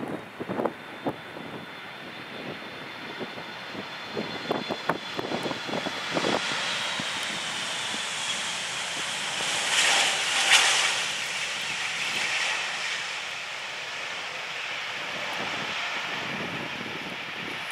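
Boeing 757-200's Rolls-Royce RB211 turbofans on the landing roll just after touchdown: a high engine whine slowly falling in pitch, with wind gusts buffeting the microphone for the first several seconds. The jet noise then swells to its loudest about ten seconds in as the airliner rolls past, and settles into steady engine noise.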